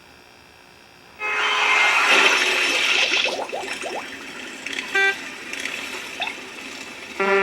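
Car sound effects: a loud noisy rush lasting about two seconds, then a short horn toot about five seconds in and a held car-horn honk near the end.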